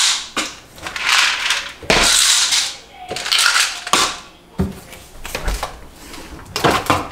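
Kitchen handling noises: a string of short rattles and clatters, with a few dull thuds as cabinet and refrigerator doors are opened and closed.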